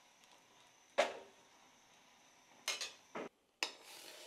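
Metal utensils knocking and scraping on cookware: a sharp knock about a second in, then a few quick clatters near the end, such as a spoon scraping cooked oats out of a steel saucepan.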